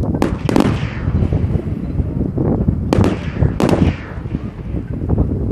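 Aerial firework shells bursting: sharp bangs in two clusters, near the start and around three seconds in, each trailing off in a rumble.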